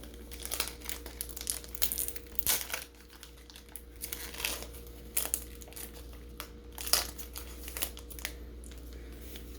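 Foil Pokémon booster pack wrapper crinkling as it is handled and torn open, in irregular crackles, the sharpest about seven seconds in.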